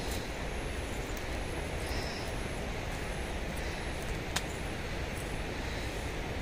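Steady rushing of a river, with a single sharp click about four seconds in.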